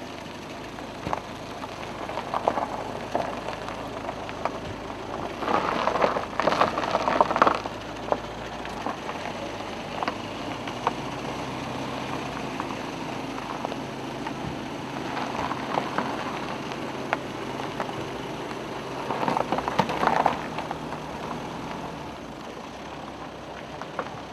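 Car engines running at idle with a steady low hum, and gravel crunching under tyres and feet as small scattered clicks. Louder noisy stretches come twice, about six seconds in and again near twenty seconds.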